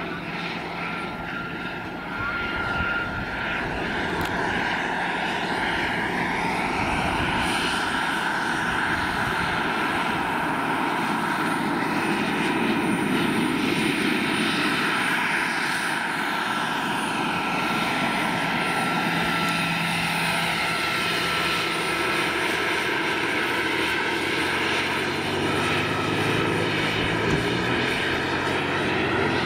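Jakadofsky Pro 6000 model gas turbine of a large radio-controlled Aérospatiale Gazelle scale helicopter running in flight, a steady turbine whine with rotor noise. It gets louder about two seconds in, and its pitch slides up and down as the helicopter flies past.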